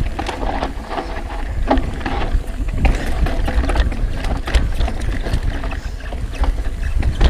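Ibis Mojo HDR 650 full-suspension mountain bike descending a rough dirt trail at speed: steady wind rumble on the chest-mounted microphone and tyre noise on dirt, with frequent sharp clicks and rattles from the bike's chain and parts over the bumps.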